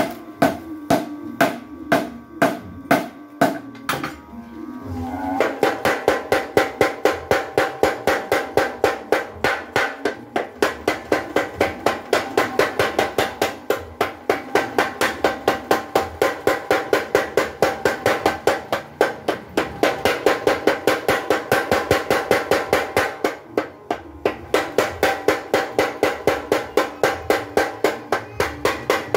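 Hammer strikes ringing on red-hot steel at an anvil, about three a second, then from about five seconds in a mechanical blacksmith's power hammer pounding the hot steel bar at a steady rate of about four blows a second, pausing briefly twice.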